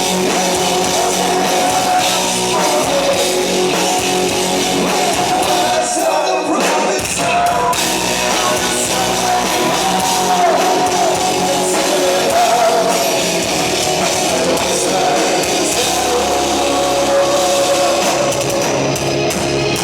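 Rock band playing a heavy song, with electric guitars, drums and a sung vocal line. The low end drops out briefly about six seconds in.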